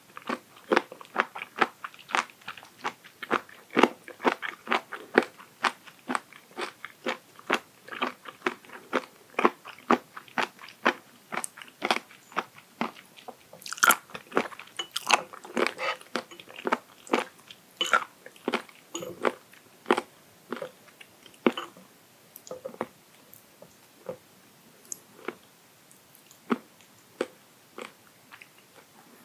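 Raw abalone sashimi chewed close to the microphone: crunchy, rapid bites and chews, a few a second, thinning to slower single crunches near the end.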